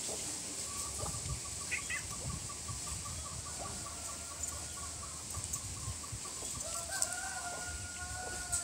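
Bird calling: a fast run of short, evenly spaced notes lasting several seconds, with a short higher chirp about two seconds in, then a longer held call near the end.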